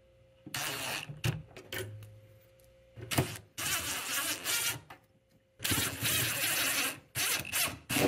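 Cordless drill driving screws into a steel refrigerator door hinge bracket, running in several short bursts to snug them tight.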